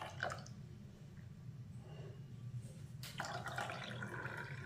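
Bermuda grass juice poured from a glass bowl into drinking glasses: a short splash just after the start, then a second pour about three seconds in that runs for about a second and a half. A faint steady low hum lies underneath.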